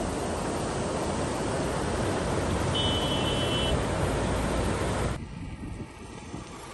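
A car on the move, with steady road and wind noise. The noise drops off abruptly about five seconds in.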